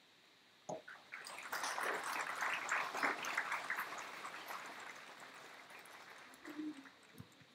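Crowd applauding after a speech, the clapping starting about a second in, peaking soon after and slowly fading away over the next few seconds.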